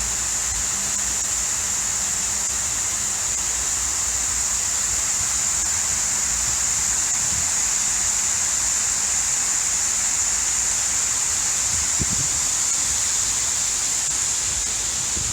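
Large public fountain: a steady rush of water jets falling and splashing, an even hiss.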